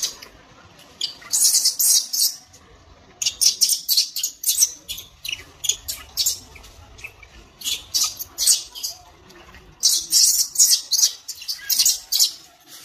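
Baby monkey giving distress squeals: clusters of short, shrill, high-pitched cries, several groups with brief pauses between them, as an adult monkey drags and pins it on the ground.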